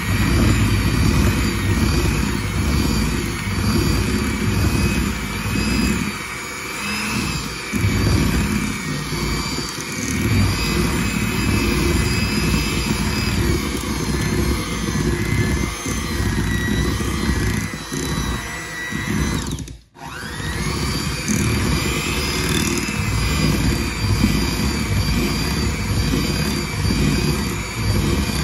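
Electric hand mixer running, its beaters churning through a thick peanut butter and cream cheese pie filling, a steady motor whine over a loud rumble. About twenty seconds in it cuts out for a moment and then whines back up to speed.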